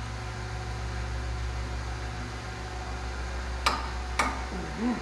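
Steady low hum of the repair shop, with two sharp metallic clicks about half a second apart near the end, from hand tools working on a Ford F-150's front brake caliper bracket bolts.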